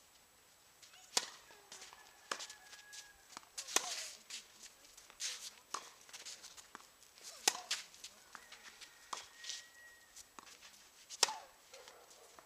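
Tennis rally: sharp racket-on-ball strikes every second or two, some much louder than others. Short shoe squeaks and scuffs on the court come between the shots.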